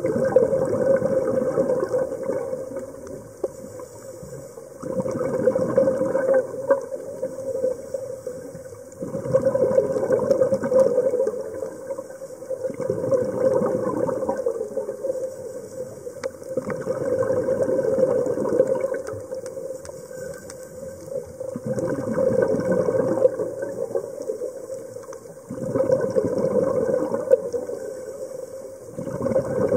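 A scuba diver breathing through a regulator underwater: a rush of exhaled bubbles about every four seconds, with quieter gaps between breaths.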